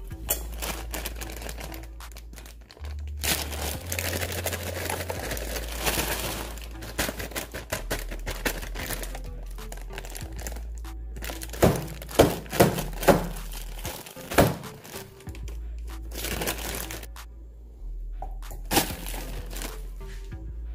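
A plastic bag of frozen fruit crinkling, then frozen fruit chunks clunking into a plastic blender jar in a handful of sharp knocks. Background music with a steady bass line plays throughout.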